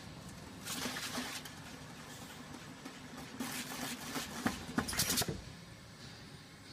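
AutoSeamer rubber-gasket rolling machine running as it turns a round duct fitting between its rollers to flange the edge and roll in the seal. It makes a steady hum with louder stretches of rolling, scraping noise about a second in and again from about three and a half to five seconds, with a few sharp clicks near five seconds.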